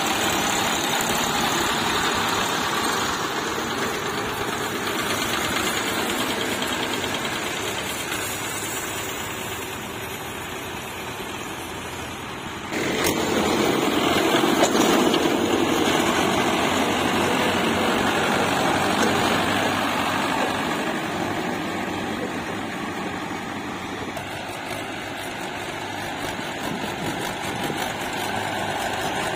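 Tractor diesel engine running, turning steadily. About halfway through the sound jumps suddenly louder, then slowly settles back.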